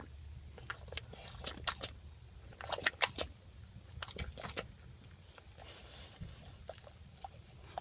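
A dog gnawing and chewing a bully stick, with irregular wet clicks and crunches that come thickest in the first half and thin out later. A low steady rumble of the car lies underneath.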